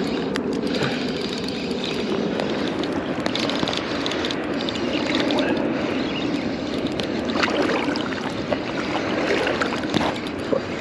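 Sea water lapping and sloshing steadily against a float tube.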